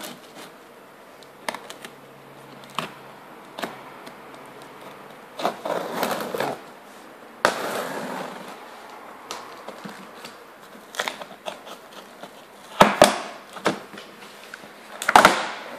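Cardboard TV carton being handled and opened by hand: packing tape and cardboard tearing and scraping, with scattered sharp knocks, the loudest two near the end.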